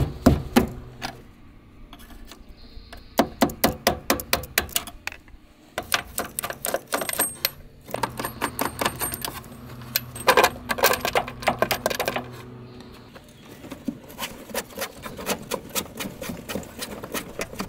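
Runs of rapid metallic clicking and rattling, each lasting a second or two, from hand work loosening the conduit connectors on a Coleman basement air conditioner's electrical box. A low hum sits under some of the runs.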